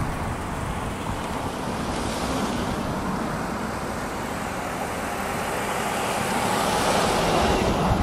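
Car driving on a two-lane road: steady tyre and road noise with low rumble, as oncoming cars pass by with a brief whoosh about two seconds in and a louder one building near the end.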